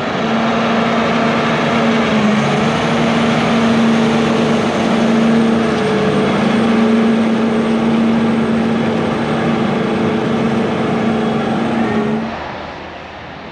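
Versatile articulated four-wheel-drive tractor's Cummins diesel engine running steadily with a strong even hum. The sound drops away sharply about twelve seconds in.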